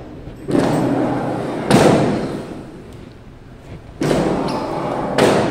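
The clear sliding top covers of a computerized flat knitting machine being pushed open along their runners, twice, each slide ending in a sharp knock as the cover hits its stop.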